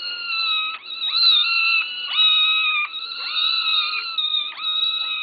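A litter of kittens meowing loudly and without pause, many high-pitched calls overlapping, each rising into a drawn-out note: hungry kittens begging for food.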